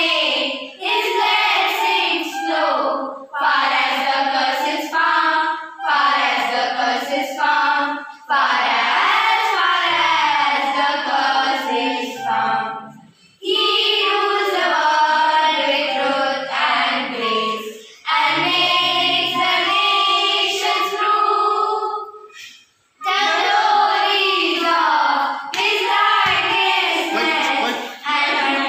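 Small choir of girls singing a Christmas carol in unison, with a recorder played along, in long phrases with short breaks between them.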